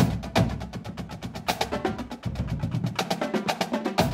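Outro music with a fast, busy percussion beat over a bass line.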